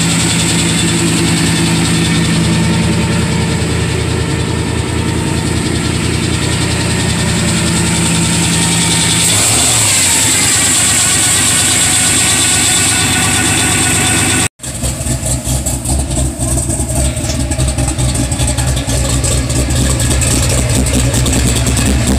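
A pickup truck's carbureted V8 engine running, started after sitting unused for about a year. About ten seconds in it picks up briefly with a rising pitch. After an abrupt cut it idles with an uneven, pulsing beat.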